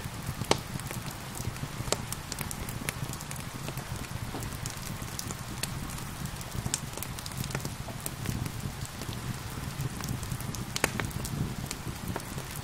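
Wood fire crackling, with irregular sharp pops, the loudest about half a second in and near the end, over a steady hiss of gentle rain and a low rumble.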